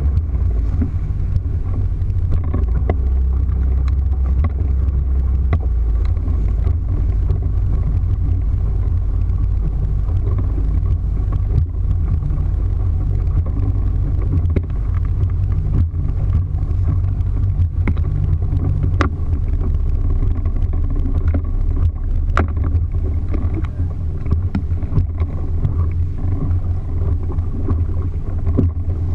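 Small boat's motor running steadily at speed, a constant low hum, with the water rushing past the hull and a few sharp knocks as the hull meets the chop.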